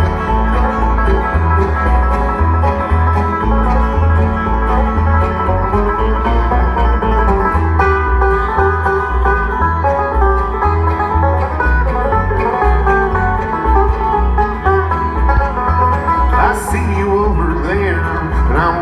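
Bluegrass band's instrumental break, with the banjo out front over acoustic guitar and upright bass. The upright bass keeps a steady alternating pulse under quick plucked notes, and some sliding notes come in near the end.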